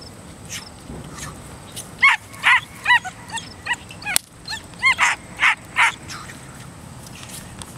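Young puppy giving a run of about ten short, high-pitched yips and barks in quick succession, starting about two seconds in and stopping about six seconds in, while held back on a leash from a bite toy. A single sharp click falls in the middle of the run.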